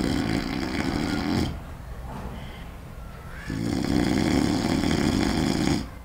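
A man's loud, put-on snoring as a prank: two long snores with a pause between, the first ending about a second and a half in, the second starting about three and a half seconds in.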